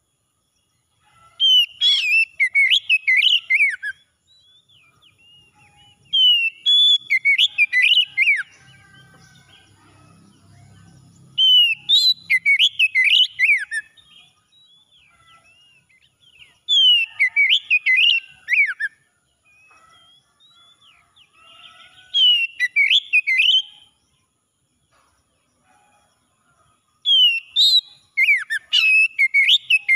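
Oriental magpie-robin singing: six phrases of whistled notes that slide up and down, each two to three seconds long, repeating about every five seconds with short quiet gaps between.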